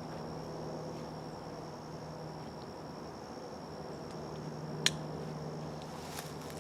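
Insects in a swamp droning steadily on one high pitch, with a low steady hum underneath. A single sharp click about five seconds in is the loudest sound.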